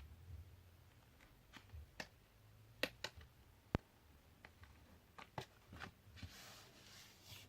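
Paper and card stock being handled on a craft desk: scattered light clicks and taps, one sharper click near the middle, then a soft papery rustle near the end.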